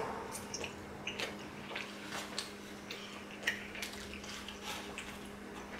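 Close-miked eating sounds: soft irregular clicks and wet mouth noises of someone chewing a slice of pizza.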